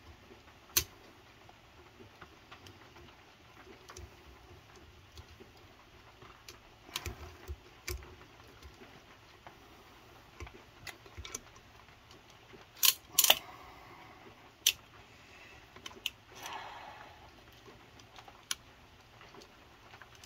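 Scattered metallic clicks and clanks of a valve spring compressor being handled and set up on a cylinder head, with a cluster of louder clanks past the middle and a short scrape after them.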